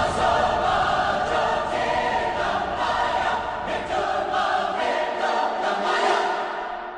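Choral music with massed voices singing over a dense backing; it fades out near the end.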